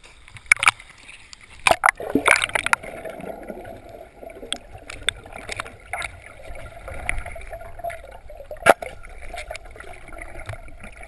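Water splashing and sloshing around the camera at the surface, with several sharp splashes in the first three seconds, then muffled underwater noise with scattered small clicks and one sharp click about nine seconds in.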